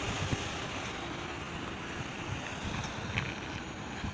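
Wind noise on the microphone over the low rumble of heavy dump trucks.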